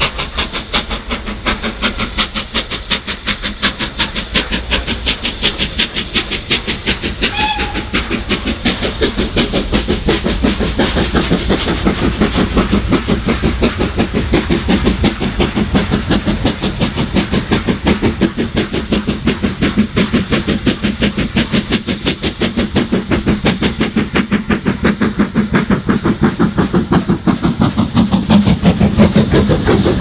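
Caprotti-valve-gear BR Standard Class 5 steam locomotive working hard, with a loud, crisp exhaust bark. Its rapid, even beats grow louder as it approaches and passes close by near the end.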